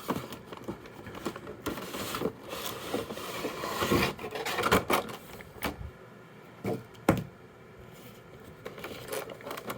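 An action-figure box being handled and opened, cardboard and plastic packaging rustling, with scattered taps and clicks and one sharp click about seven seconds in.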